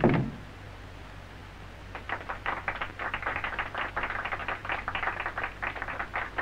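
Strange noises in a dark house on a 1970s film soundtrack: one sharp thud, then from about two seconds in a fast, irregular run of short dry scraping strokes, several a second, over a low hum.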